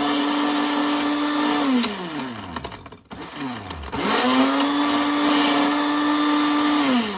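Electric countertop blender blending a thick pink smoothie, its motor running at a steady pitch. About two seconds in it winds down, starts up again about four seconds in, and winds down once more near the end.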